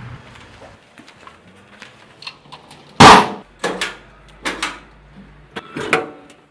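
A series of sharp knocks and clicks over a quiet background; the loudest comes about three seconds in, followed by several smaller ones.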